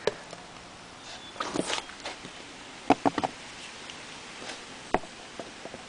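Clicks, scrapes and knocks of a prop pitch motor's metal housing and gear parts being handled during disassembly: a short scraping shuffle about a second and a half in, a quick cluster of sharp knocks around three seconds, and one more sharp knock near five seconds.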